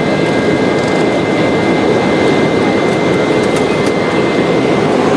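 Jet airliner cabin noise: the steady rush of engines and airflow heard from a passenger seat.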